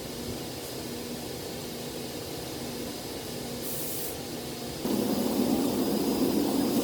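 Lathe running with a steady hum. A short high hiss comes a little past the middle, and about five seconds in a louder rough rushing noise starts and continues.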